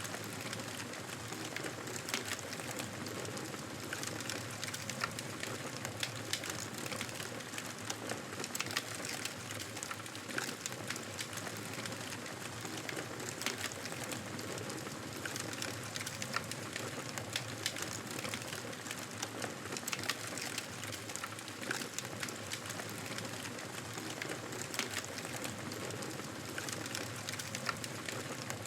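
Wood fire burning in a fireplace, crackling steadily with frequent sharp pops and snaps over a soft hiss of flames.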